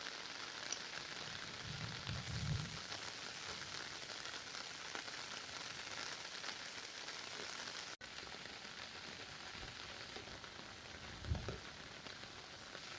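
Heavy monsoon rain falling, a steady even hiss, with two brief low rumbles, about two seconds in and near the end.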